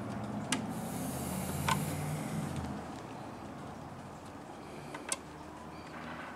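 Low engine hum of a passing motor vehicle, fading out after about two and a half seconds, with a few light clicks of plastic parts being handled.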